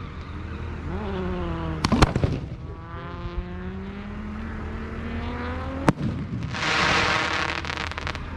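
Fireworks going off: two sharp bangs in quick succession about two seconds in and another near six seconds, followed by a loud crackling hiss. Between the bangs a pitched whine glides slowly upward.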